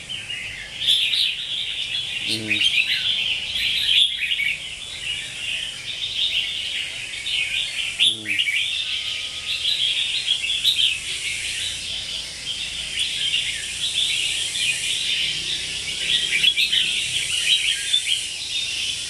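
Red-whiskered bulbul chirping and chattering in a rapid, unbroken run of quick high calls.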